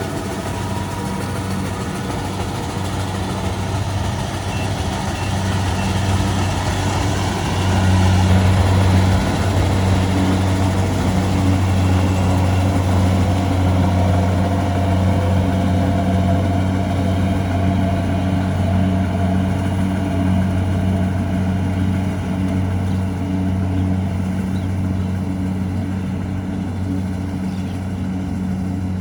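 Kubota DC-70 Pro combine harvester's diesel engine running steadily at working speed, a bit louder from about eight seconds in.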